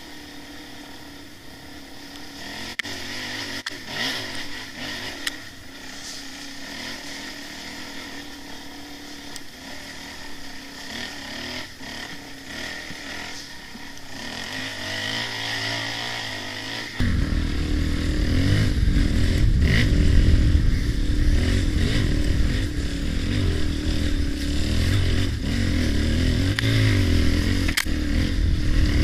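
Dirt bike engine running on a forest trail, heard from a helmet camera. About two-thirds of the way in it suddenly becomes much louder, with a heavy low rumble, as the bike gets under way down the track.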